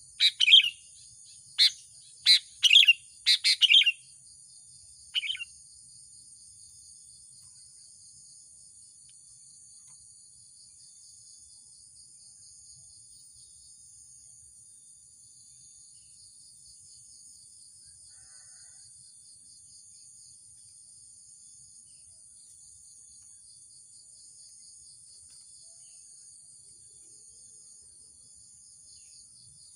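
Sooty-headed bulbul giving a quick burst of loud, short calls for the first few seconds, then one more call about five seconds in. A steady, shrill insect chorus continues underneath throughout.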